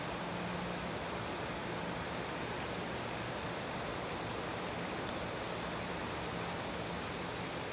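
Running water in a rock-lined stream: a steady, even rush with no separate splashes.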